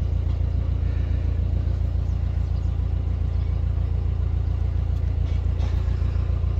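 Narrowboat's diesel engine running steadily at cruising revs, a continuous low throb with an even pulse.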